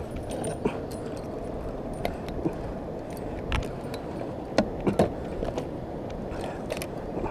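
Irregular light metallic clicks and clinks of fishing gear on a kayak, the loudest pair about two-thirds of the way in, over a steady low rush of wind and water.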